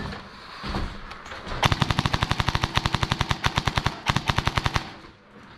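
Airsoft replica guns firing full-auto: a rapid, even string of shots lasting about two seconds, then a shorter burst after a brief pause.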